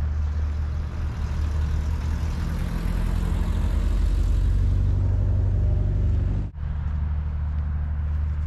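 Steady low outdoor rumble with a hiss, cutting out briefly about six and a half seconds in.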